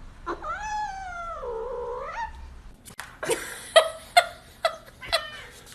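Domestic cat meowing: one long drawn-out yowl that dips in pitch and rises again, then a run of about five short, sharp meows.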